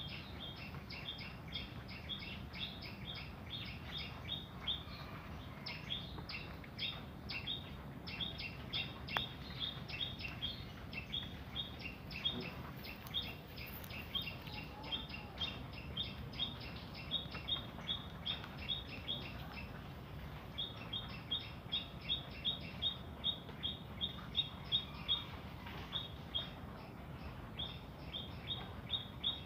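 A small bird chirping over and over, short, evenly spaced chirps of about three a second in long runs with brief pauses, over a steady low hum.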